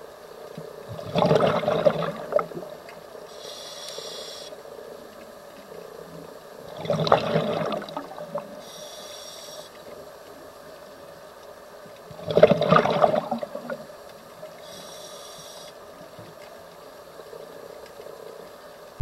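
Scuba diver's regulator heard underwater: three bursts of exhaled bubbles about five to six seconds apart, each lasting a second or so, with a fainter hiss of inhalation between them.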